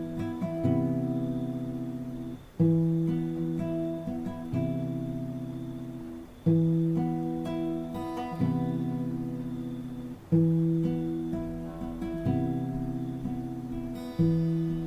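Acoustic guitar playing a repeating chord pattern, each chord struck and left to ring, a new chord about every two seconds.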